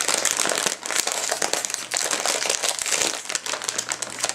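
Crinkly plastic bag of Karamucho hot chili potato chips being handled and pulled open, with dense crackling throughout.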